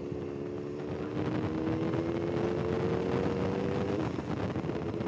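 Motorcycle engine running at road speed, its note rising slowly as the bike pulls, then dropping away about four seconds in, over wind and road noise.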